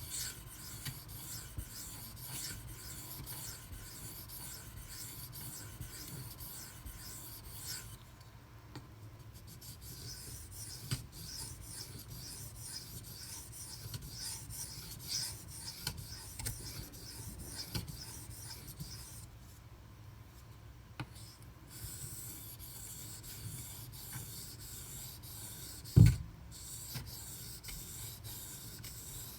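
A 154CM steel knife blade being stroked across a 2500 grit silicon carbide whetstone, a steady rasping scrape of repeated strokes with a couple of short pauses, refining the edge at the final grit. A single loud knock comes late on.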